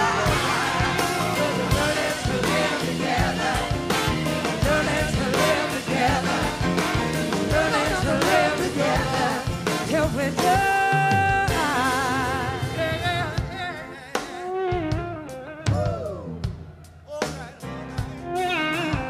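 Live rock-blues band playing with drums, keys and singing voices; about halfway through a long note is held. Near the end the band thins out and gets quieter, leaving a voice singing over sparse playing.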